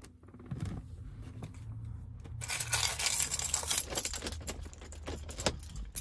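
Handling noise inside a car: a busy run of small clicks and rustles, starting about halfway through, as things are moved about near the centre console, over a low steady hum.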